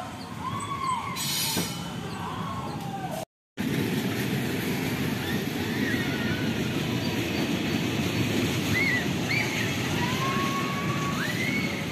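Teacup ride turning, with a steady mechanical rumble and a few short high-pitched calls above it. The sound cuts out briefly about three seconds in.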